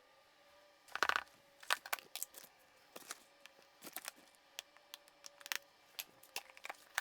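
Food containers and packaging being handled: a quick cluster of crackles and clicks about a second in, then scattered light taps and clicks.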